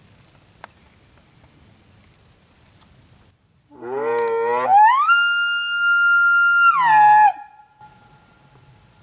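A bull elk bugling once, loud and close. The call starts as a low growl about four seconds in, climbs into a high, pure whistle held for nearly two seconds, then drops back down to a lower tone.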